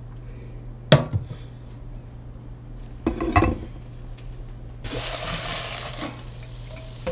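Stainless-steel pot knocked down onto the cooktop with a sharp clank about a second in, then a cluster of metal knocks a couple of seconds later. Near the end, dried pollack skins rustle and hiss as they are dropped by hand into the hot pot for stir-frying.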